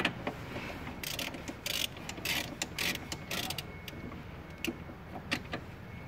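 Socket ratchet clicking in short quick runs as it turns a brake master cylinder mounting nut, about five runs in the first three and a half seconds, then a few single clicks.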